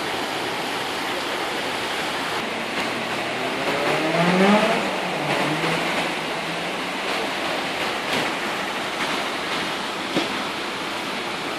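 Floodwater of a rain-swollen river spilling over its concrete bank and rushing across pavement, a steady rushing noise. About four seconds in, a short pitched sound rises over it for a second or so.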